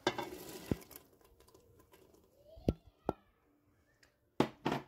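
Green peas tipped from a bowl into a pressure-cooker pot of meat in sauce with a brief rushing patter, followed by a few sharp knocks against the pot.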